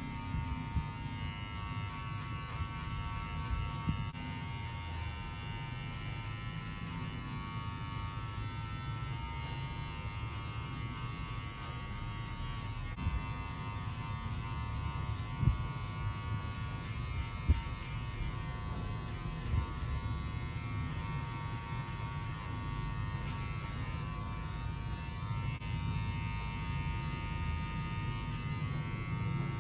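Electric hair clippers buzzing steadily while cutting a fade, with a few sharp clicks about halfway through.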